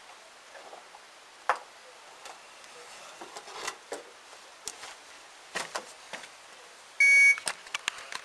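A single electronic beep, under half a second long, about seven seconds in, among scattered light clicks and knocks.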